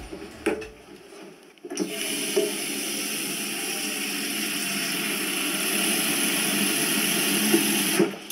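Water running from a kitchen mixer tap into a stainless-steel sink as dishes are rinsed under it. It comes on about two seconds in as a steady rush and cuts off sharply near the end.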